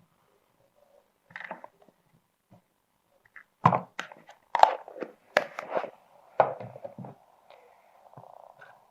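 Plastic Play-Doh tools knocking and clattering on a tabletop: a few light taps, then a run of sharper knocks about every half second to second through the middle.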